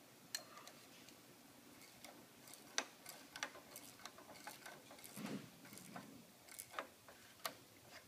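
Faint, irregular clicking of a ratchet wrench as it expands a collet puller inside a bearing's outer race, working the collet's lips behind the race.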